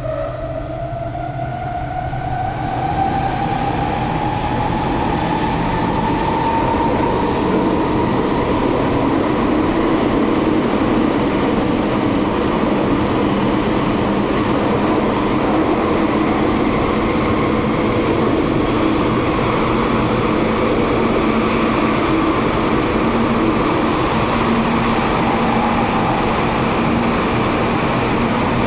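Metro train heard from inside the carriage, accelerating away: the traction motors whine rising in pitch over the first few seconds, then it settles into a steady running rumble of wheels on rail at speed.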